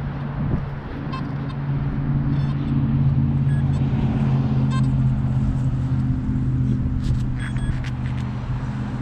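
A motor running with a steady low hum, with a few faint short high beeps over it.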